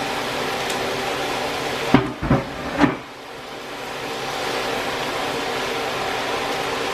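Steady hiss with a faint hum from onions and bell peppers cooking down in butter and brown sugar in a pot. About two seconds in come three quick knocks of a utensil on the pot, after which the hiss drops and slowly builds back.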